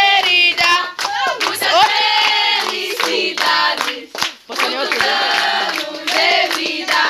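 A group of young voices singing a birthday song together, with hand clapping keeping time.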